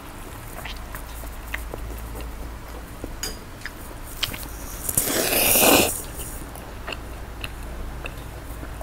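A person slurping instant noodles once, about five seconds in: a wet sucking sound that grows louder for about a second and then cuts off. Small wet chewing and mouth clicks come and go around it.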